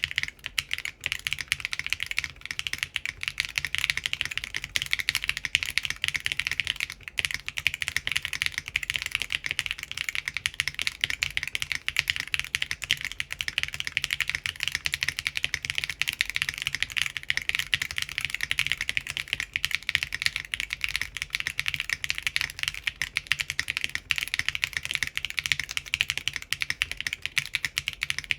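Continuous fast typing on a Typface Kafka mechanical keyboard with factory-lubed Geon RAW HE magnetic switches and 60 g springs, o-ring gasket mounted, with an aluminium plate and ABS doubleshot keycaps. It is a dense, unbroken stream of sharp keystroke clacks.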